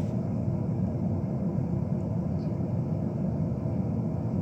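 Steady low rumbling background noise, unchanging throughout, with one or two faint ticks.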